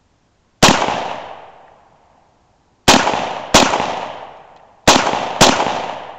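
Five single shots from a Bulgarian AK-74 rifle in 5.45×39mm: one about half a second in, then two quick pairs, each shot trailing off in a long echo.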